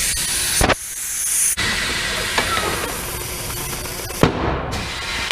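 Air hissing steadily out of a tire's open valve stem with the valve core removed as the tire is deflated. The hiss breaks off briefly twice, each time with a sharp click.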